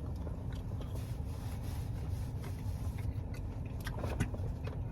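Close-up mouth sounds of chewing a fried garlic cheddar bite: faint wet clicks over a steady low rumble.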